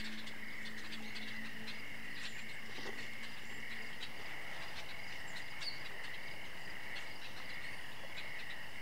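Night chorus of crickets: a steady, unbroken high-pitched trill with faint scattered ticks.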